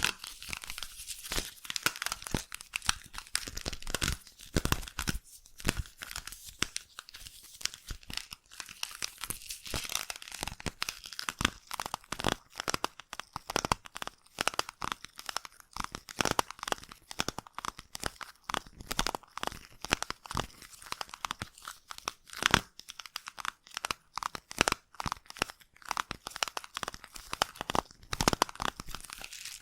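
Slime being squished and worked against a microphone's ear, giving dense, irregular sticky crackles and pops.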